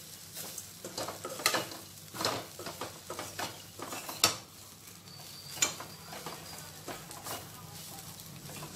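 A spatula stirring fried moringa (drumstick) leaves mixed with peanut powder in a pan: irregular scrapes and taps against the pan, with a few sharper knocks, the loudest about four seconds in.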